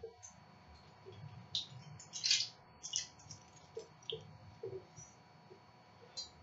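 Scattered faint clicks, rustles and soft knocks of a person moving about and handling small objects, over a faint steady thin tone.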